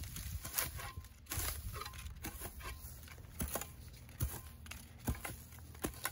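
Dry grass and weeds rustling and tearing as a hand tool scrapes and rakes through them on the soil, with a series of sharp scrapes about once a second.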